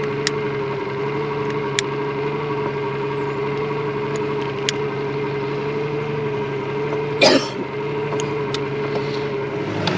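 Outboard boat engine idling steadily with a low hum. A few faint sharp clicks, and about seven seconds in a short hiss, come from a jet lighter being worked close by.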